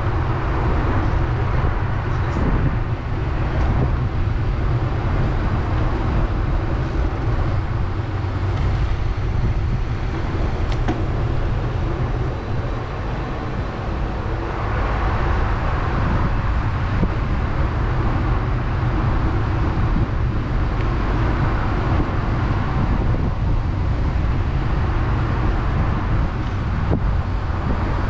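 Steady street and traffic noise with a heavy low rumble of wind on the microphone, heard from a moving bicycle.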